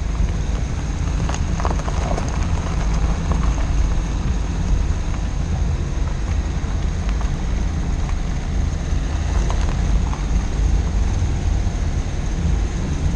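Dacia Duster driving over a loose rocky gravel track, heard from a camera mounted on the outside of the body by the front wheel: a steady low rumble of tyres, engine and wind on the microphone. Stones crunch and click under the tyres, most clearly about a second and a half in and again near the ten-second mark.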